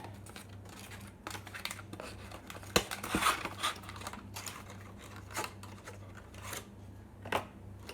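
An SSD's retail box and packaging being handled and opened: scattered clicks, scrapes and rustles, with one sharp click a little before the middle.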